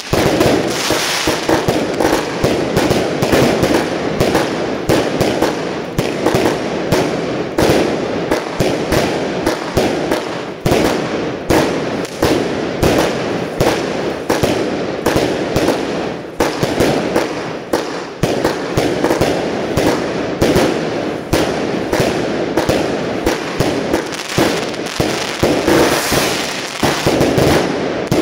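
Multi-shot fireworks cakes firing a dense, unbroken barrage: rapid bangs of shells launching and bursting overhead, several a second, with no let-up.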